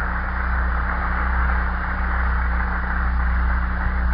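Audience applauding steadily, with a low hum from the recording underneath.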